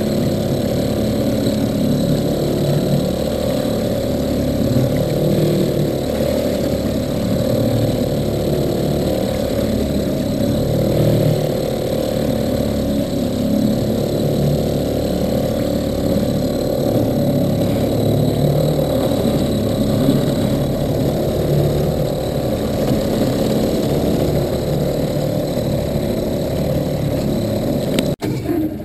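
Outboard motor running steadily with the boat under way. The sound breaks off abruptly near the end.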